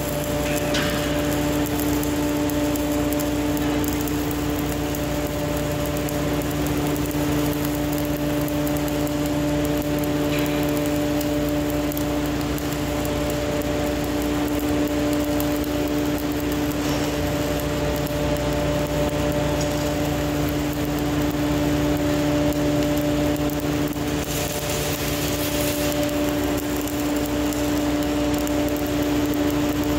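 Stick-welding arc from a 1/8-inch 308 stainless electrode at 127 amps crackling and hissing steadily as a vertical-up bead is run, over a steady machine hum.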